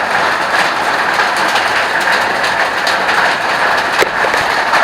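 Waterfall rushing steadily with loud, even water noise, with a few sharp ticks of water dripping, one clearer about four seconds in.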